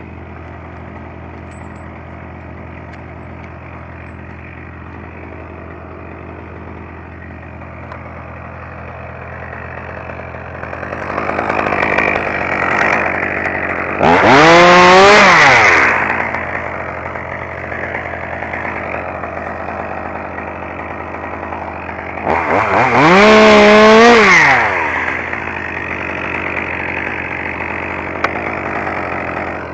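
Two-stroke chainsaw idling, revved up to full speed twice for about two seconds each time, pitch rising and then dropping back to idle.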